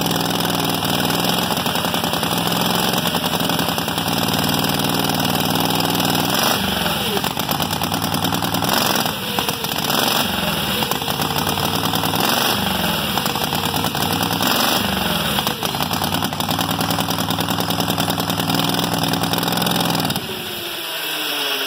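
Drag-racing motorcycle engine warming up: it runs steadily, then is blipped about seven times in a row, roughly every one and a half seconds, each time rising and dropping back. It settles again, then is shut off a little over a second before the end and spins down.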